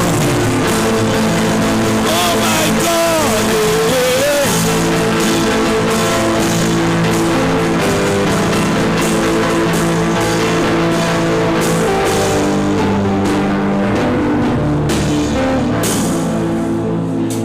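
Loud, steady worship music played by instruments, with long sustained chords, and a few sliding notes a few seconds in.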